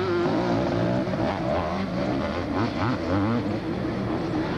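Motocross motorcycle engines revving, their pitch rising and falling as the riders work the throttle around the track.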